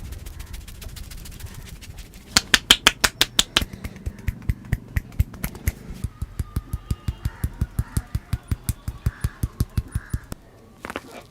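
Massage skin cracking: hands slapping and snapping skin in a rapid run of sharp cracks, fastest and loudest about two seconds in and then steadier at about four or five a second, stopping near the end.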